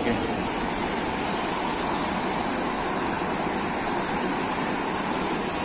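Swollen, muddy Ganga rushing fast around rocks and stone slabs, a steady even rush of water. The river is rising after rain and slowly climbing over the stones.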